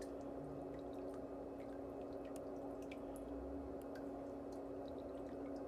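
Faint water dripping and trickling over a steady low hum, with a few light clicks of stainless cuticle nippers working at a toenail.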